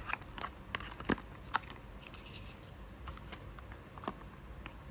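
Light clicks and taps of fingers and fingernails handling small glass ampoules seated in a plastic blister tray inside a cardboard box. The clicks come in a quick scatter through the first second and a half, the loudest about a second in, with one more near the end.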